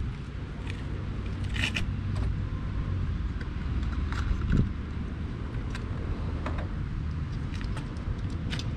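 Scattered small clicks and light metallic taps as screws are picked out by hand and fitted back into a truck's headlamp housing, over a steady low rumble.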